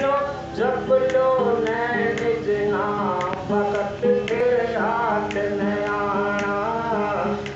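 A man singing a Hindi devotional shabd into a microphone, the melody long-held and ornamented, over a steady low drone and light percussion strikes keeping a regular beat about two a second.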